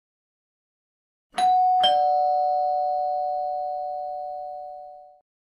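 Two-tone doorbell chime: a higher note, then a lower one about half a second later, both ringing on and fading away over about three seconds.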